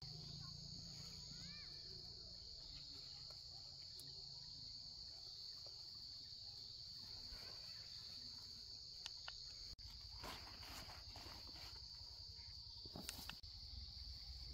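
Insects chirring in one steady, unbroken high drone. Brief rustling noises come about ten seconds in and again near the end.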